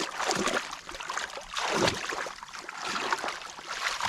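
Shallow canal water splashing and sloshing in irregular surges as someone moves through it.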